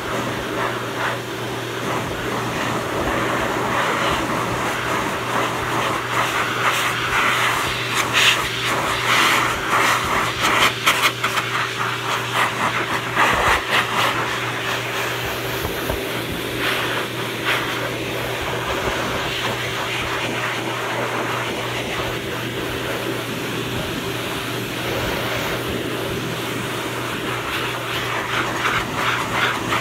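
Forced-air pet grooming dryer blowing steadily, a constant motor hum under a rush of air, which gets louder and more uneven for a few seconds in the middle as the nozzle is worked over the coat.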